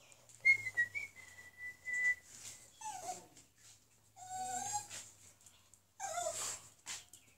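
Small dog whining to be fed: first a thin, high, steady whine, then several shorter whimpers that fall in pitch.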